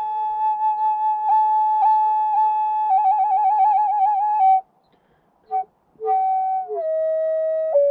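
Solo flute music: long held notes with a quick trill about three seconds in, a short break just past the middle, then held notes stepping down in pitch near the end.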